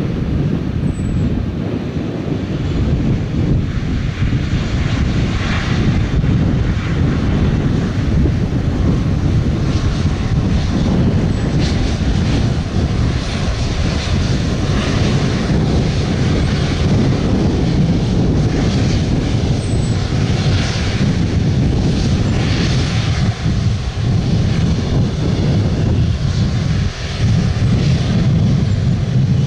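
Airbus A330 MRTT's two Rolls-Royce Trent 700 turbofans running as the jet taxis on the ground, a steady low rumble.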